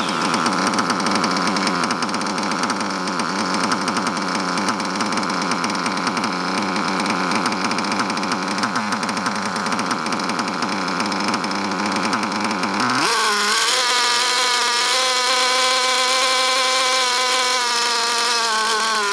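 Nitro RC car's two-stroke engine running at full throttle on an extremely rich break-in mixture, rough and uneven at first. About two-thirds of the way through, its pitch rises sharply and it settles into a higher, cleaner note as the main needle is turned in to lean the mixture and raise the RPM.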